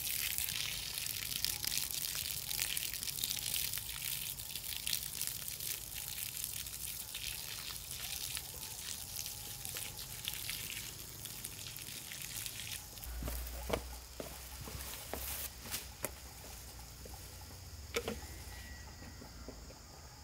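Water from a garden hose splashing and trickling onto loose, freshly tilled soil, a steady hiss that thins out about two-thirds of the way through. A few sharp knocks follow near the end.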